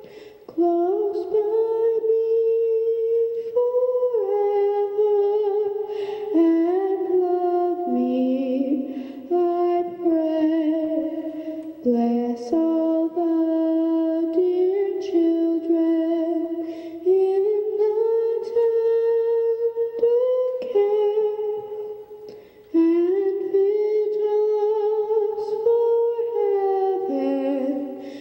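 A solo voice singing a slow melody in long held notes, with short pauses between phrases.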